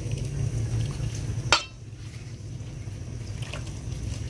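Coconut milk being poured, then a single sharp clink of a dish about one and a half seconds in, after which the pouring stops.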